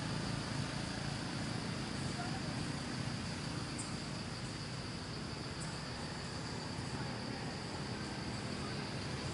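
Steady, unbroken high-pitched drone of jungle insects, over a low rumble.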